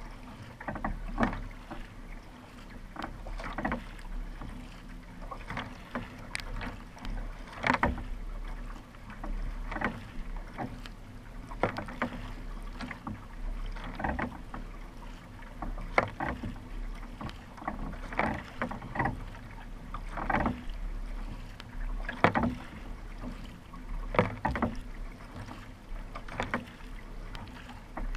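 Kayak paddle strokes: the blade catches and pulls through the water with a splashy stroke about every two seconds, over water rushing along the hull.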